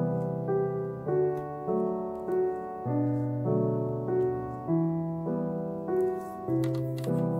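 Background piano music: soft sustained chords changing about every half second, with a few light clicks near the end.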